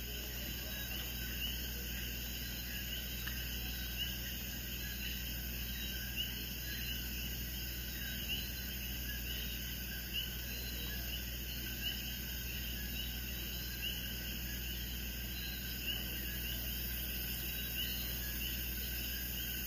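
Faint chorus of chirping insects, a steady run of high chirps repeating several times a second, over a steady low hum, with a soft faint tick every second or two.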